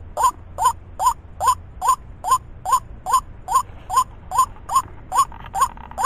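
White-breasted waterhen calling: a harsh, croaking 'kru-ak' note repeated over and over in a steady, even rhythm, about two and a half calls a second.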